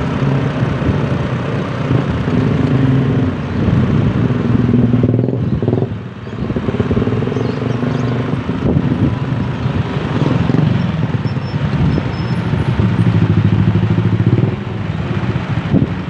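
Motor vehicle engines running on the road, their pitch rising and falling as they speed up and slow down, over steady road noise. The sound dips briefly about six seconds in.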